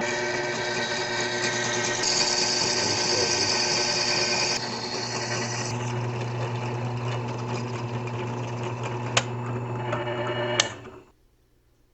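Electric drill with an 11/64-inch bit running steadily as it drills a hole through a light-switch cover plate. A higher, hissing cutting sound joins the motor's whine from about two to four and a half seconds in, and the motor stops near the end.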